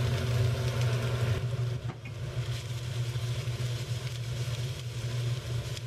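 Kitchen range hood fan running with a steady low hum, while onions sizzle as they are tipped into a hot frying pan and stirred; the sizzle is a little louder in the first two seconds.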